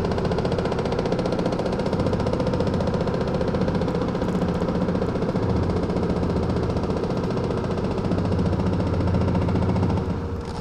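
Excavator-mounted hydraulic breaker hammering rapidly and steadily into the concrete base of a chimney, with the excavator's engine running underneath. It drops away near the end.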